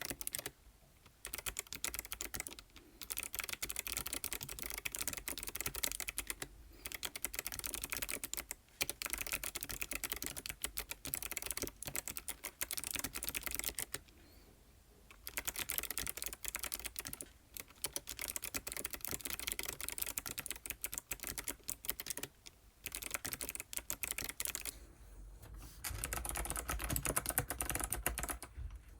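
ABKO ADK05 mechanical keyboard with white switches being typed on: fast, continuous runs of keystroke clicks broken by short pauses, the longest about fourteen seconds in.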